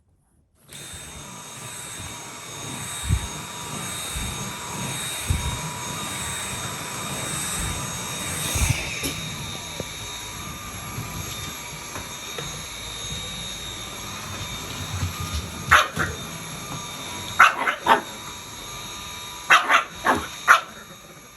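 Pekingese dogs barking: about five short, sharp barks come in quick clusters in the last third, over a steady faint hum. Dull low thumps sound a few times in the first half.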